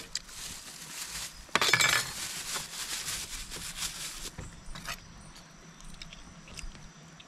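Light clinks and clicks of eating utensils and plates, with a louder scraping rustle about a second and a half in. A steady high hiss stops suddenly about four seconds in.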